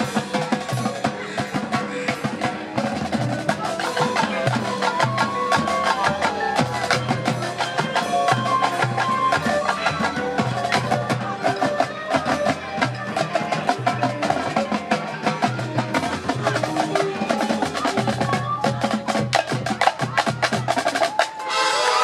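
Marching band playing: rapid percussion strikes from the drumline and front ensemble over held brass and woodwind notes.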